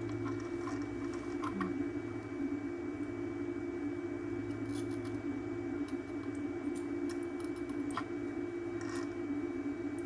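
Steady low electrical hum with a faint high whine from bench equipment, and a few faint light clicks of a soldering iron and tools against a circuit board.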